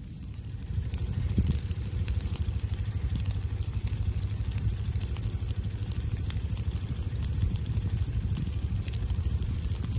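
Low flames of a prescribed fire burning through dry leaf litter, crackling with many small pops over a steady low rumble.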